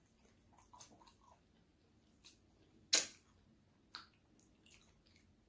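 Close-miked eating mouth sounds: soft lip smacks about a second in, then one loud sharp click about three seconds in, and a short wet smack about a second later as a finger is licked clean.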